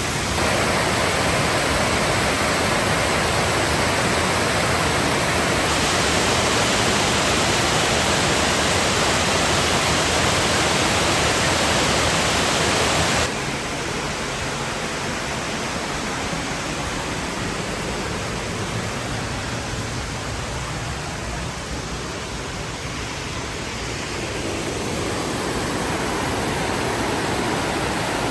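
Steady rush of falling water from a waterfall. It drops abruptly to a softer, duller rush about halfway through, then swells slightly near the end.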